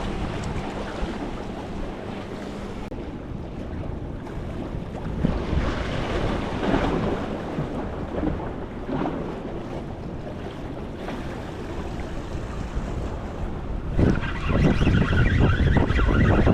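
Wind buffeting the microphone over waves washing against the jetty rocks, the wind gusting louder near the end.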